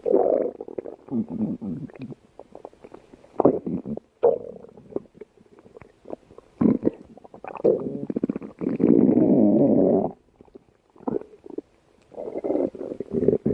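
Stomach growling: a string of short, irregular rumbles, with one longer unbroken growl of about a second and a half past the middle and another run of rumbles near the end.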